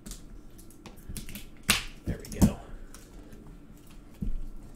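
Shrink wrap being cut and peeled off a cardboard box by hand: a handful of sharp plastic snaps and taps, the two loudest a little under a second apart near the middle.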